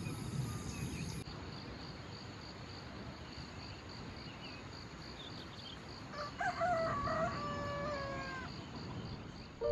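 A rooster crows once, a long drawn-out call about six seconds in, over a steady pulsing chirp of insects.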